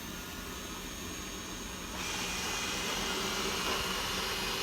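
Roborock S6 Pure robot vacuum starting a cleaning run: its suction fan and brushes run with a steady high whine and hiss, stepping up louder about two seconds in.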